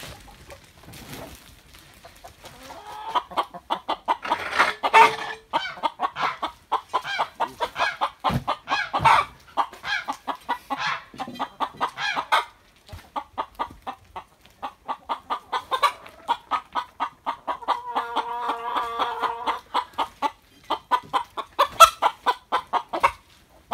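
A flock of domestic hens clucking rapidly, several short clucks a second, with one longer drawn-out call about eighteen seconds in.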